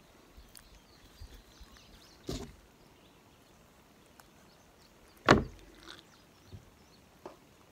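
Knocks from a knife and a chicken carcass handled on a plastic cutting board: a dull knock about two seconds in, a sharp, much louder knock a little past five seconds, then a couple of small ticks.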